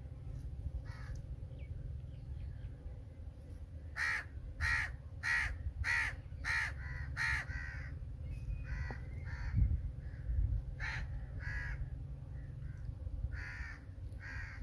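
A crow cawing: a quick run of about seven caws about four seconds in, then scattered single caws, over a steady low rumble.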